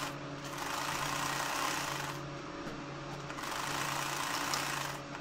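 Sewing machine stitching a piping strip onto fabric, running in two spells with a pause of about a second in the middle.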